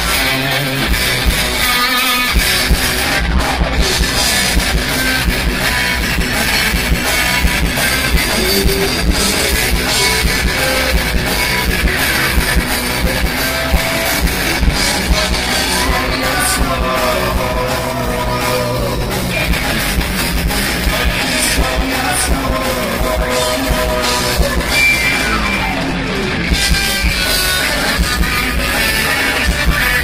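Live progressive rock band playing loudly, with electric guitars and a drum kit, recorded on a phone with distorted, overloaded sound. A lead line holds and glides in pitch over the band through the middle of the passage.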